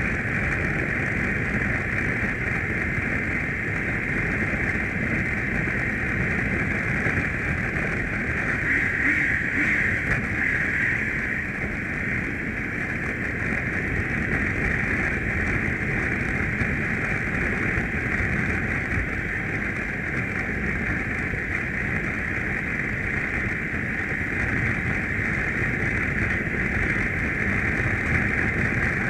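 Steady wind rush and road noise on the microphone of a BMW adventure motorcycle riding at a constant speed, with the engine running low underneath. The sound stays even, with no gear changes or revving.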